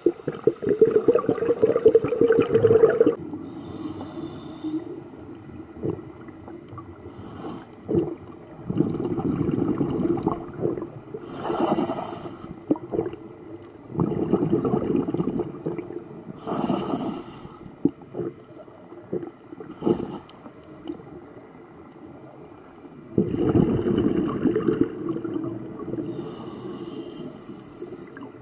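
Open-circuit scuba breathing through a regulator, heard through an underwater camera housing: short hisses of inhalation alternating with longer gurgling stretches of exhaled bubbles, several breaths in turn.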